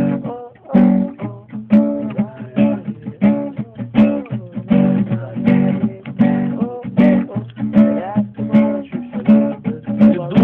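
Acoustic guitar strummed in a steady rhythm, chords ringing with each stroke.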